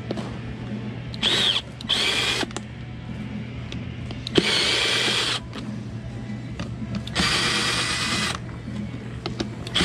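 Cordless drill-driver spinning out the screws that hold an old plate to a roller skate boot, in four short runs of about half a second to a second each, with a sharp click a little over four seconds in.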